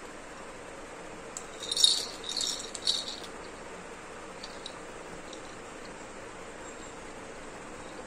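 Pink-and-yellow plastic ball rattle shaken in a baby's hand: a burst of high, clicking rattles starting about a second and a half in and lasting under two seconds, then a few faint ticks.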